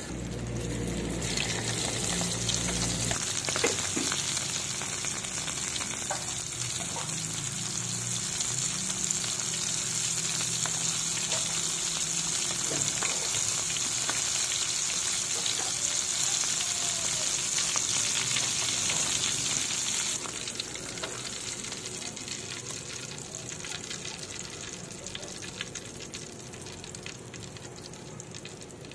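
Dried redsal fish frying in hot oil in a pan: a steady sizzle with a few sharp clicks. About twenty seconds in, the sizzle drops noticeably quieter.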